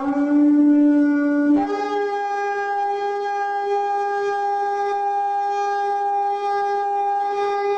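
Shofar blast: a lower note that slides up into place and holds for about a second and a half, then breaks up to a higher note held long and steady.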